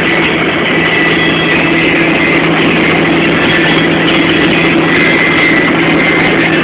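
Kenworth K104 truck's diesel engine and road noise heard from inside the cab at highway speed: a loud, steady drone with a constant high whine.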